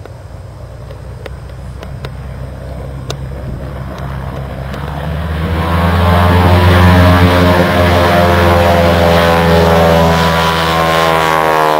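De Havilland Beaver floatplane's engine and propeller at takeoff power, a droning note that grows steadily louder over the first half as the aircraft approaches. The note stays loud, then drops in pitch near the end as the aircraft passes.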